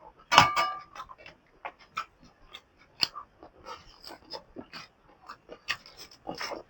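Close-up mouth sounds of a person eating: wet chewing and irregular smacking clicks, with one louder, briefly pitched sound about half a second in.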